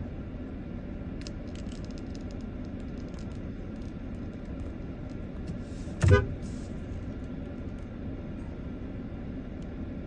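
Steady low rumble of a running engine, with one short, loud pitched toot about six seconds in.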